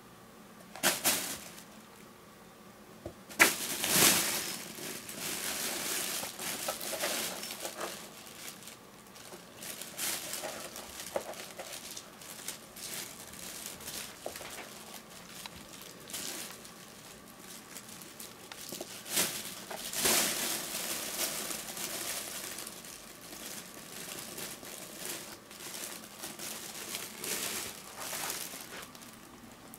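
Fabric cat play tunnel rustling and crinkling in irregular bursts as a kitten rolls, scrabbles and wrestles against it, loudest about 4 and 20 seconds in.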